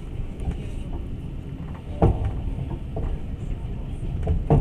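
Passenger train running, heard from inside the carriage: a steady low rumble with sharp knocks about two seconds in and again near the end.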